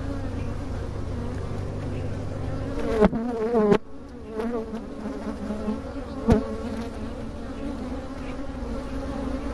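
Honeybees buzzing steadily around an opened hive, the buzz wavering in pitch as a frame crowded with workers is lifted and handled. Two sharp clicks stand out, about four and about six seconds in.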